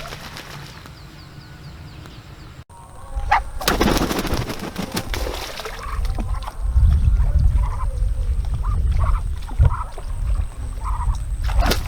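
Ducks quacking in short, repeated calls over a low rumble, starting about three seconds in.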